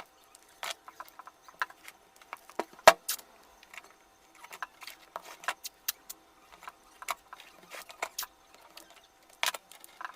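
Irregular clicks, taps and light rattles of hands working on an electric-bike battery pack, the sharpest knock about three seconds in, over a faint steady hum.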